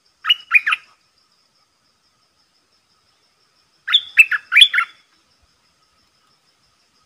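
Bulbul singing in short bursts of quick, liquid up-and-down whistled notes: a three-note phrase just after the start and a longer phrase of about five notes around four seconds in.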